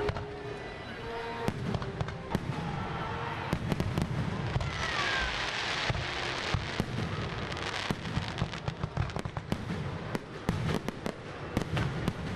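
Fireworks display: repeated sharp bangs and crackling from exploding shells, with a hissing crackle about five seconds in and a dense run of rapid reports in the second half.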